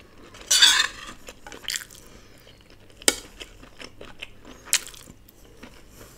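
Close-miked eating sounds: chewing a mouthful of sabudana pulao, and a metal spoon clicking against the plate a few times. The loudest sound is one half-second rasp about half a second in.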